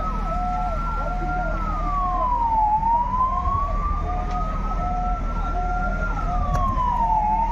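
Two emergency sirens sounding together. One is a slow wail that rises over about three seconds and drops back quickly, twice. The other repeats a short tone about one and a half times a second, over a low steady engine hum.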